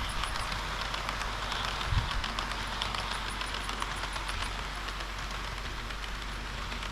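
HO-scale model train rolling along layout track: a steady rolling hiss with light rapid clicks from the wheels on the rails, and one low thump about two seconds in.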